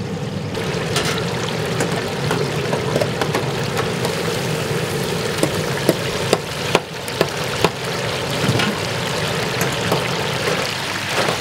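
Chicken frying in a large vat of hot oil: a steady bubbling hiss. A few sharp metal clinks come past the middle as a wire skimmer lifts fried pieces into a stainless steel pan.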